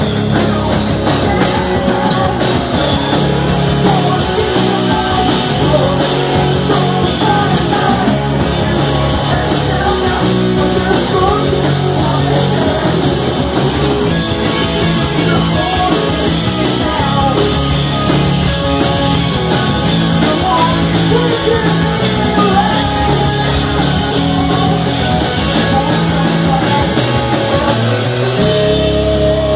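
Live rock band playing loud and without pause: a singer's voice over electric guitar, bass guitar and drums.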